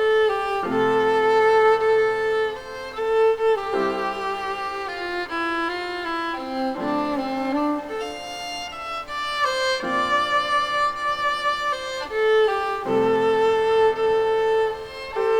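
Music: a violin playing a slow melody of long held notes over a lower sustained accompaniment that changes chord about every three seconds.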